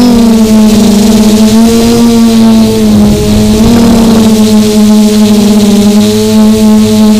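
Multirotor drone's Quanum MT2814 880KV brushless motors spinning 1055 carbon-fibre propellers, heard from the onboard camera: a loud, steady buzzing hum. Its pitch dips and rises slightly a few times as the throttle shifts.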